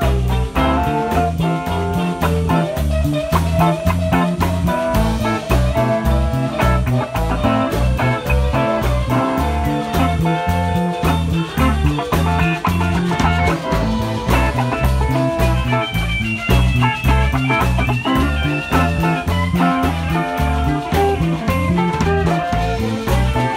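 Live blues band jamming: a guitar plays a melodic lead over a steady pulsing bass line and drum kit.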